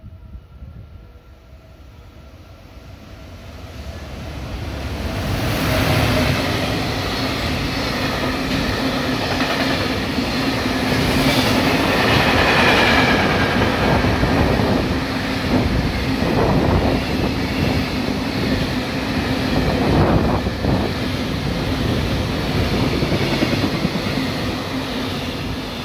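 JR Freight container train passing through a station. It grows louder over the first six seconds as it nears, then a long string of container wagons rolls past with the wheels clacking over the rail joints over a steady low hum.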